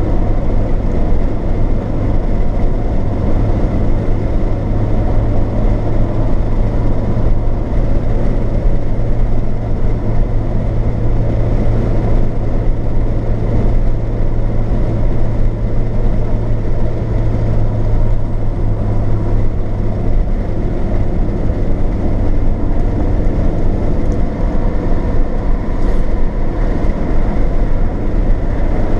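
Steady road and engine noise of a car driving on a motorway, heard from inside the cabin. A low drone in it eases off about twenty seconds in.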